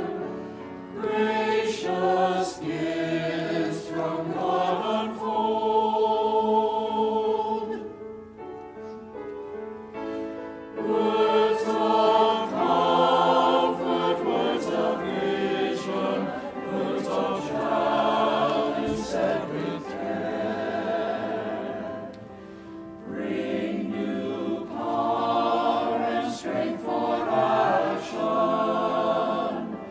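Mixed church choir singing a sacred anthem with accompaniment, in sustained sung phrases. The sound drops briefly between phrases about eight seconds in and again past the twenty-second mark.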